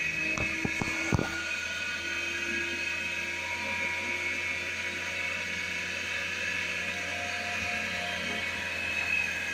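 Koinoor centrifugal spin dryer running, its motor and spinning drum giving a steady whine over a low hum. A few sharp knocks come in the first second or so.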